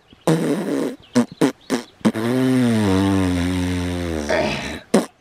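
A man crying loudly: a rough sob, three short gasping sobs, then one long drawn-out wail.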